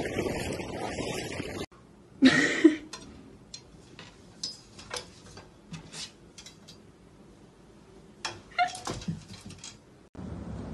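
Wind buffeting the microphone over open water, cut off after about a second and a half. Then a cat gives a loud yowl, a scatter of light clicks and taps follows, and near the end the cat meows again.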